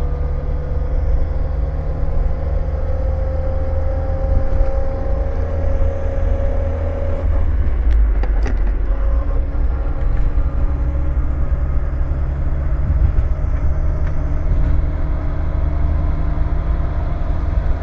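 Renault Scénic 2.0 8V's manual gearbox whining while the car is driven: a steady high whine, rising slowly in pitch over the car's low rumble, that drops away about seven seconds in, with a fainter, lower whine coming back later. The noise stayed after the pinion was replaced, following a broken tripod joint whose rollers fell into the gearbox; the crown wheel was not replaced and the owner does not know the cause.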